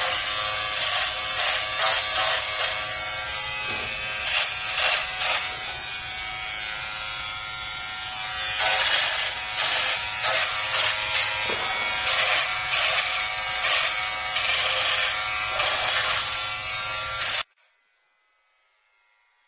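Small handheld electric trimmer buzzing steadily while cutting moustache hair, its level wavering as the head is pressed against the lip. The buzz cuts off abruptly near the end, leaving near silence.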